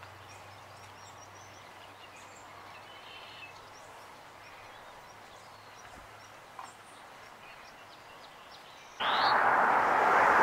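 Quiet outdoor background with faint, scattered distant bird chirps. About nine seconds in, a loud, steady rushing noise starts abruptly.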